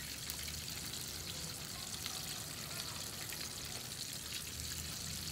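Chicken deep-frying in hot oil: a steady sizzle with fine crackles.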